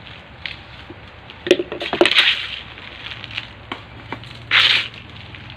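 Gritty adenium potting mix of coarse volcanic sand, burnt rice husk and compost being poured from a plastic scoop into a plastic pot and worked in by hand around the plant's base: crunching, rustling scrapes in a few short bursts, the loudest about two seconds in and again about a second before the end.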